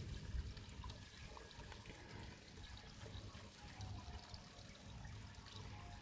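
Faint, steady trickle of water from a garden pond's water feature, over a low uneven rumble.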